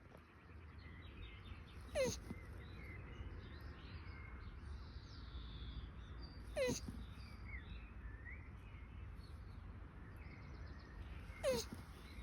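A mating turtle crying out three times, about every four to five seconds: each cry is short and high, falling in pitch. Faint chirps sound in the background.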